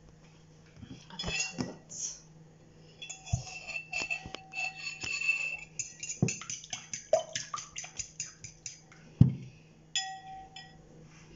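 Metal fork beating egg and oil in a ceramic bowl, clinking and scraping against the sides so the bowl rings. The strokes quicken to a rapid run of clinks, about six a second, and end with one heavier knock about nine seconds in.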